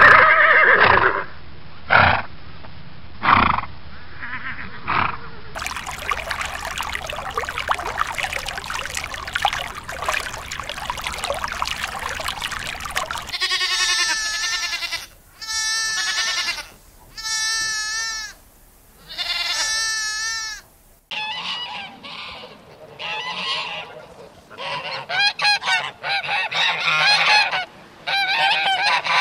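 A run of farm-animal calls: a horse gives a few short calls, then after a dense noisy stretch lambs bleat four times, each a wavering call of about a second and a half. In the last third, domestic geese honk in quick, overlapping calls.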